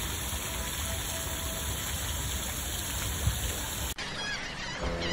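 Fountain water splashing and falling in a steady rush, which cuts off abruptly about four seconds in. Birds' calls follow, and steady musical tones come in near the end.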